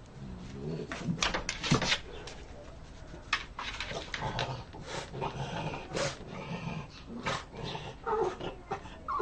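Domestic dog growling and grumbling in a run of short, broken sounds, the noises of a dog asking to be let in.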